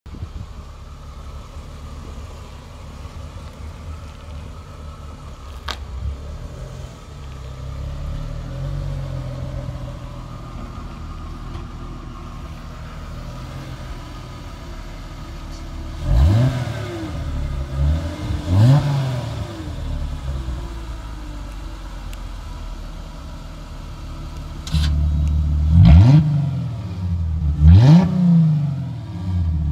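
Chrysler Crossfire's 3.2-litre V6 through a custom stainless sport exhaust with a cutout, idling, then blipped in two quick sharp revs. Near the end the idle suddenly turns louder and deeper, followed by two more sharp revs.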